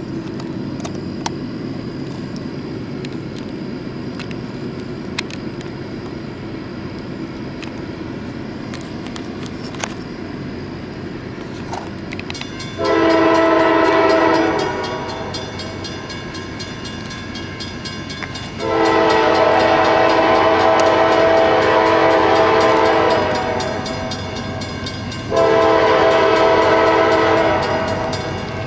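A CSX diesel locomotive's air horn sounding a chord three times: a short blast about halfway through, a long one a few seconds later, and another near the end. Under it runs a steady low rumble from the approaching train.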